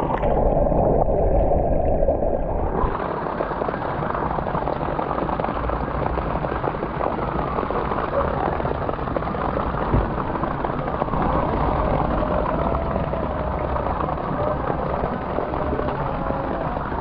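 Swimming-pool water sloshing and gurgling around a microphone at the surface, duller and more muffled for the first few seconds while it is underwater.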